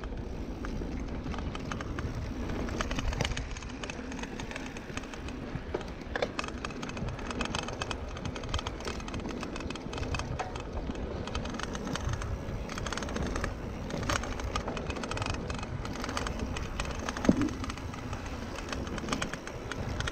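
Mountain bike riding over a dirt singletrack: tyres rolling on the dirt, irregular clicks and rattles from the bike over bumps, and wind rumble on the handlebar-mounted camera's microphone, with one sharper knock about seventeen seconds in.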